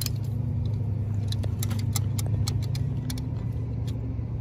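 Scattered sharp metallic clicks and clinks as channel-lock pliers and hand tools work on the Bobcat T650's oil drain tube fitting. Underneath runs a steady low machine drone.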